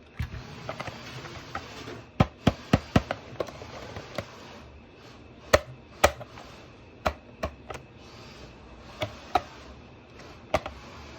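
Hard plastic being handled: a string of about fifteen irregular sharp clicks and taps, some in quick runs of two or three.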